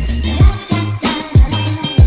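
Background dance music with a beat of deep bass drum hits and held bass notes.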